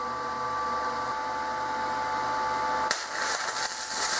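Blue Demon BlueArc 160STI inverter stick welder humming steadily with a few thin high tones. About three seconds in the arc strikes, and a 1/8-inch 6011 rod on DC electrode positive, turned up to about 90 amps, burns with a loud crackling hiss.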